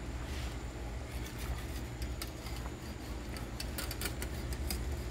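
Wire whisk stirring thick sausage gravy in a stainless steel pan, its wires clicking and scraping lightly against the pan, more often in the second half, over a steady low hum.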